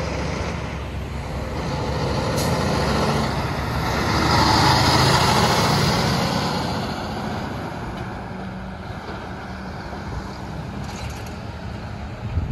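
Diesel engine and tyres of a roll-off scrap-metal truck driving past: the sound builds as it approaches, is loudest as it passes close about four to six seconds in, then fades as it moves away.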